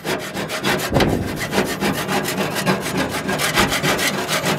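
A putty knife scraping caked grease off the steel bottom of a gas grill's firebox in quick, repeated gritty strokes, several a second, getting louder about a second in.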